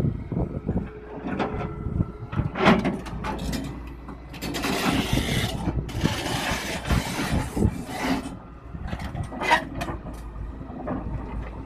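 Tata Hitachi Zaxis 210LCH excavator running with its hydraulics working as it moves its bare track frame onto a loose steel track chain, with repeated metal clanks and knocks from the track links and undercarriage. A loud hiss runs for about four seconds in the middle.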